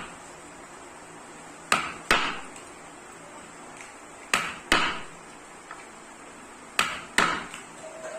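Hammer blows in pairs: two quick strikes, then a pause of about two seconds, three times over.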